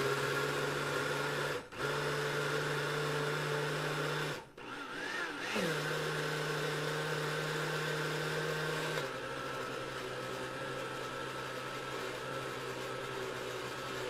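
Hamilton Beach countertop blender running a thick smoothie of mango and ice, a mix it sometimes struggles to blend. It cuts out briefly near two seconds and again for about a second around four and a half seconds, spinning back up each time. From about nine seconds in it runs a little quieter and lower.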